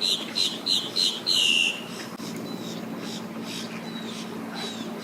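Bird calls: a quick run of short, sharp, high calls ending in a longer falling call in the first two seconds, then fainter falling whistled notes about once a second.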